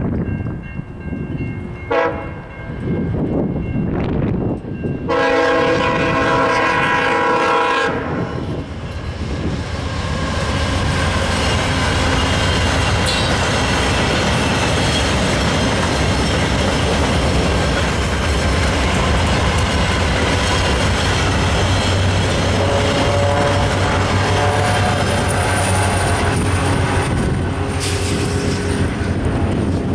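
VIA Rail passenger train sounding its multi-note horn, a short blast about two seconds in, then a longer, louder blast about five seconds in. The train then passes close by with a steady loud rush of wheel and rail noise.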